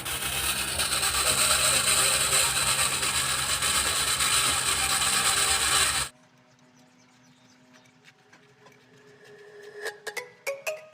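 Loud, steady scraping noise with a low hum beneath it, which cuts off suddenly about six seconds in. Faint clicks and musical tones start near the end.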